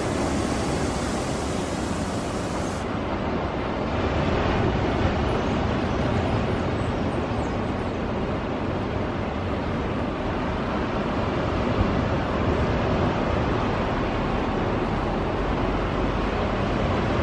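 Steady urban traffic noise: a continuous, even hum of vehicles with no distinct events.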